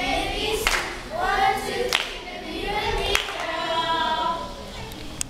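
A group of children singing together, with a sharp clap about every second and a quarter.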